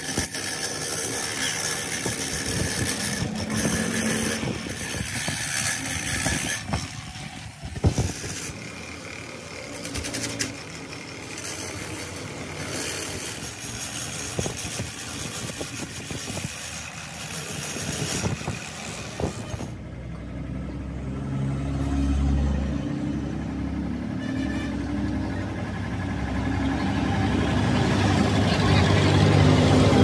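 Steady background noise with a few sharp knocks, then from about twenty seconds in a low engine running, getting louder toward the end.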